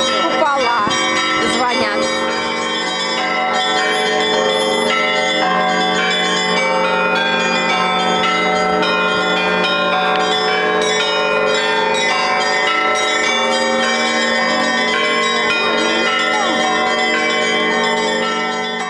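Russian Orthodox church bells rung together in a continuous peal, several bells of different pitches struck in overlapping rhythm so that their ringing blends into one sustained chime. The ringing fades out near the end.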